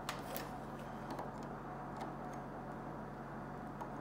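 A few faint clicks and light handling noises over a steady low hum, as an electric hand mixer's cord is plugged into a wall outlet. The clearest click comes just after the start.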